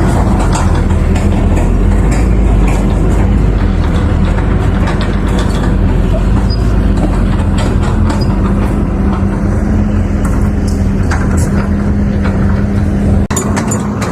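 Heavy diesel machinery running steadily under load, with frequent metallic clanks and knocks over the engine. The sound changes abruptly about 13 seconds in.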